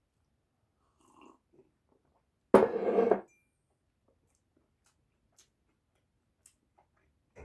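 A person eating: faint mouth and eating noises, with one short, loud burst of sound about two and a half seconds in.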